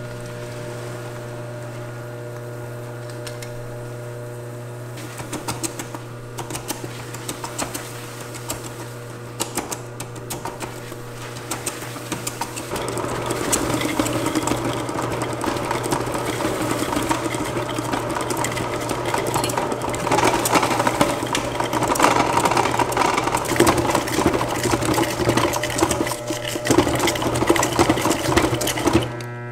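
Stand mixer motor running with a steady hum, churning gelato base while liquid nitrogen is poured into its steel bowl. From about halfway a hissing crackle of the nitrogen boiling off grows louder as the mix freezes.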